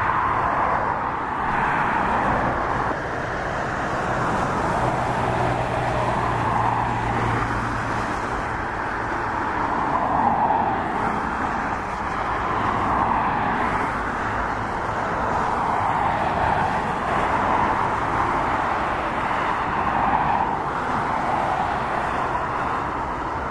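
Aircraft engines running at an airport: a steady rushing drone that swells and fades every few seconds over a low hum.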